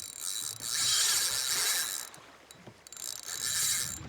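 Fishing reel's drag ticking in a fast buzz as a hooked fish pulls line off: a run of about two seconds, a pause, then another shorter run near the end.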